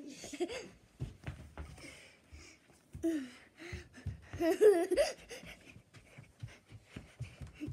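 A child's voice in short bursts of giggling and breathy exclamations, loudest about halfway through, over scattered soft low thumps.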